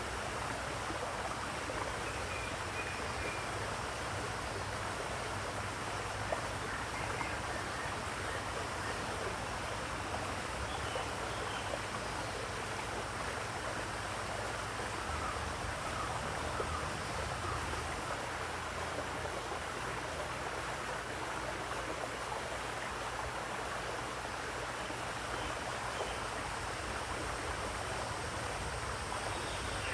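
Steady rush of running water, with a few faint bird chirps now and then.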